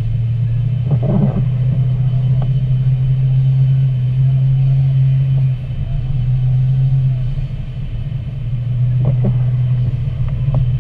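Steady low drone of a car driving on a wet road, heard from inside the cabin: engine and tyre noise. Two short swishes of the windshield wiper come about a second in and near the end.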